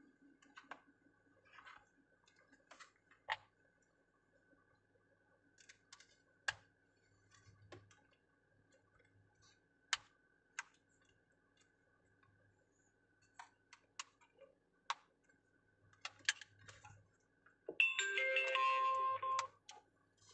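Scattered light clicks and taps of hands handling and fitting a plastic mirror dash-cam unit over a car's rear-view mirror. Near the end comes a louder electronic tune of a few steady tones, about a second and a half long.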